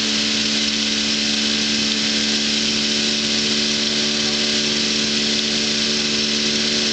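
A small engine running steadily at an unchanging speed, with a steady hum and a strong even hiss over it.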